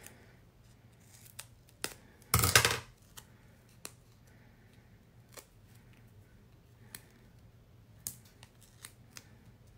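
Scissors cutting through foam tape in one short snip about two and a half seconds in, then faint scattered clicks and rustles of small foam-tape pieces being handled and pressed onto paper.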